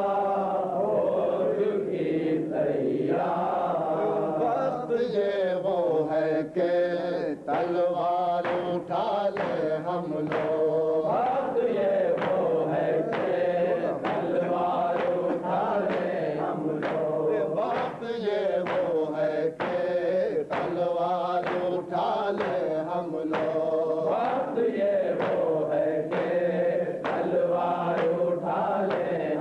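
A group of men chanting a noha together, with hands striking chests (matam) in a steady beat.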